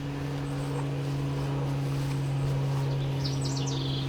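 A steady low hum, like a distant motor, runs throughout. About three seconds in, a songbird sings a short phrase of rapid high notes.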